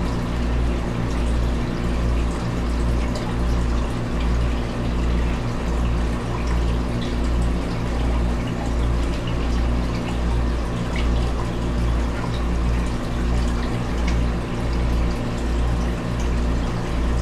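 Water circulating in a frog tank: the pump and overflow run with a steady hum and water trickling, under a low throb that pulses about twice a second.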